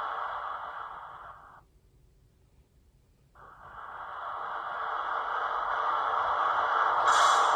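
Sound decoder of a Roco Re 420 model locomotive playing a steady rushing noise through its small speaker. The noise fades out, stops for about a second and a half, then fades back in and builds. A higher hiss joins near the end.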